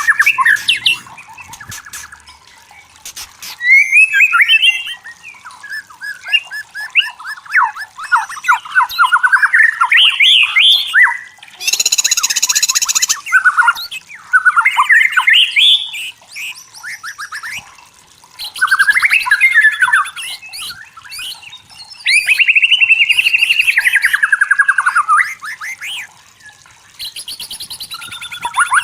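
White-rumped shama singing: varied phrases of clear whistles, rising and falling glides and fast trills, broken by short pauses, with one harsh buzzy note about twelve seconds in.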